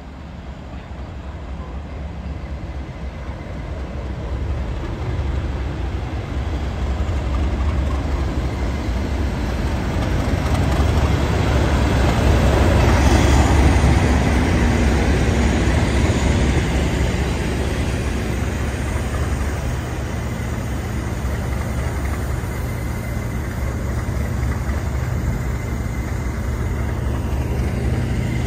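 Class 37 diesel locomotive, with its English Electric V12 engine, approaching and passing close by; it grows steadily louder to a peak about halfway through as it goes past. The coaches behind it then keep rolling by with steady wheel and rail noise.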